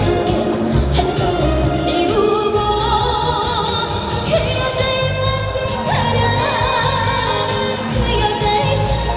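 A woman singing a trot song live with wide vibrato over an amplified backing track with a steady beat, heard through the outdoor PA system.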